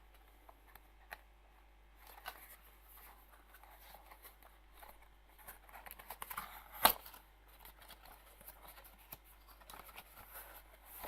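Headphone packaging being handled and unpacked: irregular rustling and scraping with small clicks, and one sharp knock about seven seconds in.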